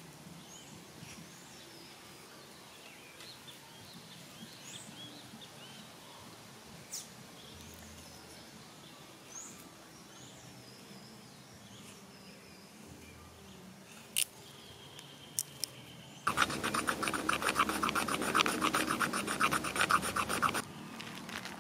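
Birds chirping, with faint knife work on wood. About three quarters in, a knife blade scrapes rapidly and loudly along a dry wooden stick for about four seconds, rasping off fine shavings for fire tinder, then stops abruptly.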